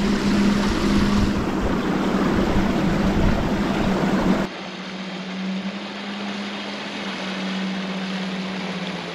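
Boat on open water: wind and water noise with a steady low hum running under it. The noise drops sharply about four and a half seconds in while the hum carries on.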